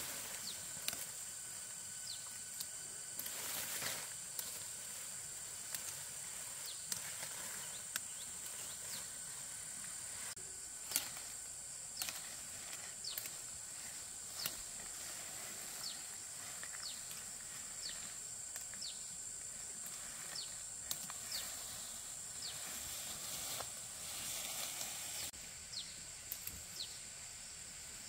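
Rural outdoor ambience: a steady high-pitched drone, with brief falling chirps every second or two and scattered short clicks and knocks.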